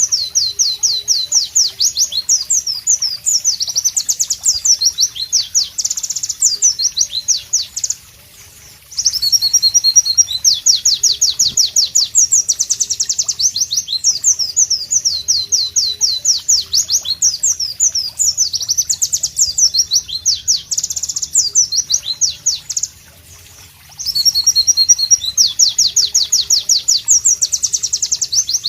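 White-eye (pleci) singing loudly: long runs of rapid, high, sharply falling notes, each run going on for many seconds. The song breaks off twice for about a second.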